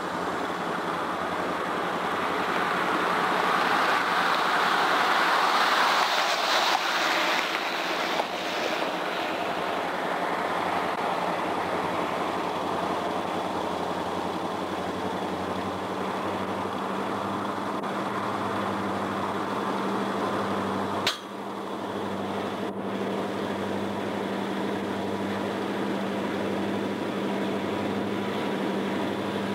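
Diesel locomotives running under load as a train approaches, a steady engine drone with a slow pulsing throb that grows as it comes nearer. There is a single sharp click about two-thirds of the way through.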